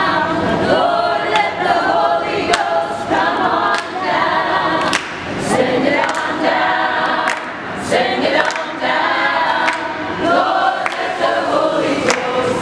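A group of voices singing together a cappella, like a choir, with hand claps keeping time about once a second.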